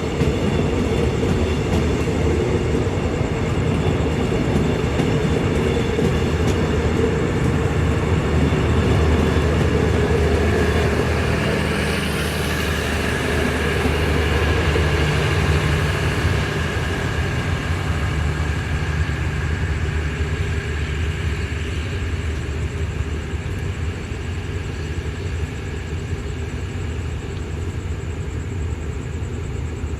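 Passenger train moving along the track: a steady rumble of its diesel locomotive and wheels running on the rails, growing slightly quieter in the second half.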